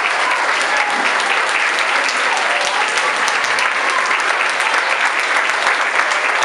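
A small crowd applauding steadily, many hands clapping at once.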